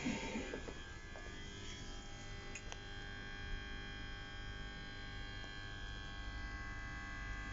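French TER regional train running: a steady whine of several held tones over a low rumble.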